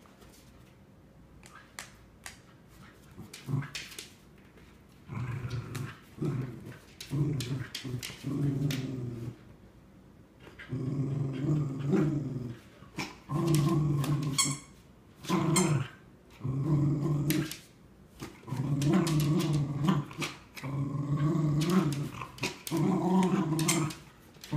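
Cardigan Welsh Corgis growling in play while tugging a toy in tug-of-war. After a few quiet seconds with scattered clicks, the growls come in repeated bouts of a second or two each, with short breaks between them.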